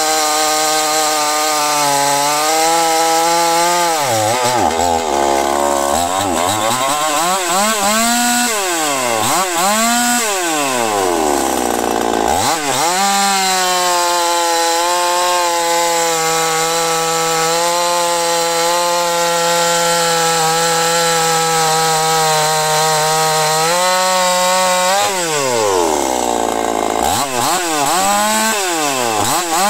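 Chinese-type two-stroke chainsaw cutting wood at full throttle. It drops back toward idle three times and revs up again.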